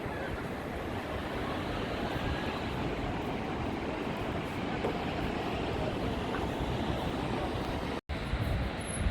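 Steady rushing noise of wind and sea at the waterfront, which drops out for an instant near the end.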